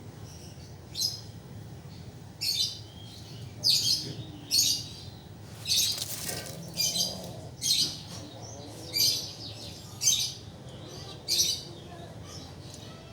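A mouse squeaking repeatedly in distress while a kitten plays with it: about a dozen short, high squeaks, roughly one a second.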